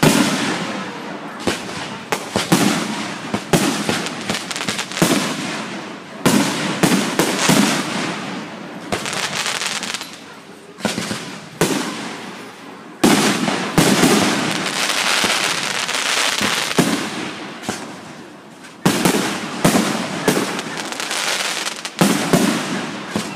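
Aerial fireworks shells bursting in quick succession, each sharp bang fading out over a second or two. A little past halfway the bursts pile up into a dense, sustained barrage.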